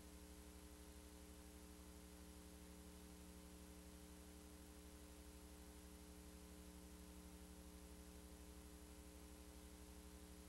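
Near silence: only a faint steady electrical hum with hiss, the recording's own noise.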